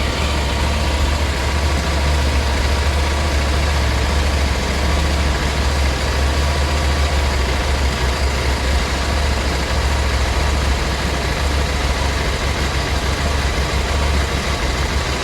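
KTM 790 Adventure S's 799 cc parallel-twin engine idling steadily, just started on a cold morning after seven tries: a hard-starting problem.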